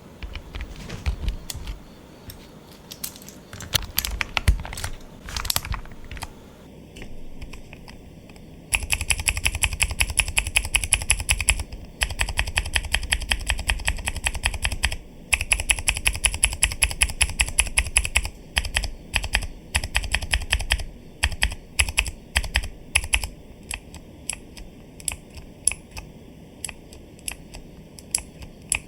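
Mechanical keyboard with clicky Cherry MX switches being typed on: scattered single keystrokes at first, then fast continuous typing from about nine seconds in with two short breaks, thinning back to separate key presses for the last several seconds.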